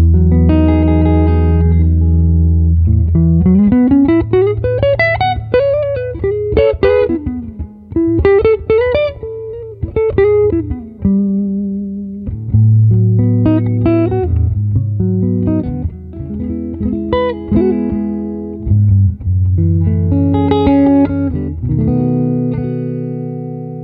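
Geronimo Mateos Orleans 16 archtop jazz guitar played solo: chords and single-note lines, with notes sliding smoothly up and down in pitch between about 3 and 11 seconds in.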